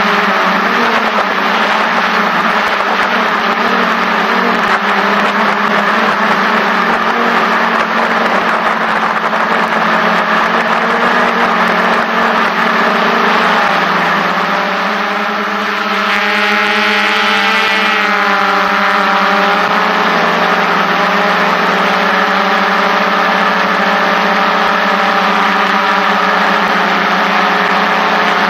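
DJI F550 hexacopter's six electric motors and propellers whirring loud and steady in flight, heard from a camera mounted on the frame. About halfway through, the pitch bends and wavers for a few seconds as the motors change speed, then settles again.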